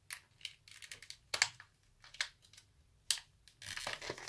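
Clear plastic packaging crinkling and clicking in the hands as it is opened, with a short tearing rustle a little before the end.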